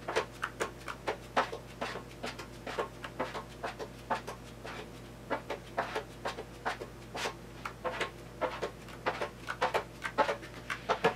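Quick, irregular scraping and clicking strokes, a few each second, from hand work with body filler, typical of a plastic spreader working filler on a mixing board. A steady low hum runs underneath.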